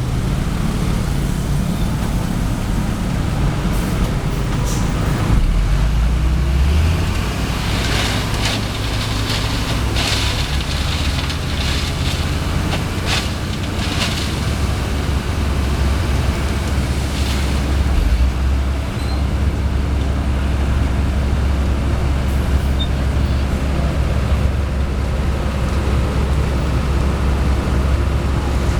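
Heavy diesel engines of an asphalt paver and dump truck running steadily in a low drone, the engine note shifting about a third of the way in and again past the middle. Several brief sharp noises come in the middle stretch.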